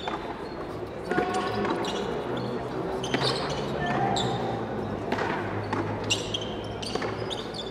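Frontón handball rally: a series of sharp cracks, about a second apart, as the ball is struck by hand and slams off the wall and concrete floor, each crack echoing around the walled court.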